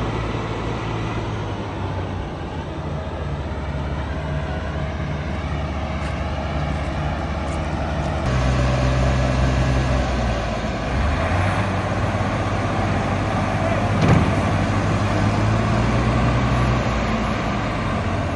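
Combine harvester's diesel engine running steadily, with an abrupt change about eight seconds in to a louder, deeper run.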